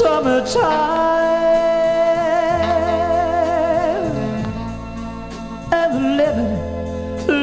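Band music from a 1972 recording: long held notes with a wavering vibrato over sustained bass notes, with new notes coming in near the end.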